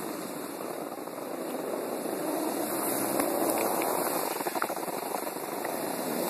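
Steady rushing noise of skis sliding over snow, with wind buffeting a phone microphone as the skier moves downhill.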